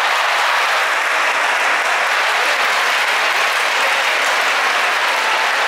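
Large sumo arena crowd applauding and cheering steadily.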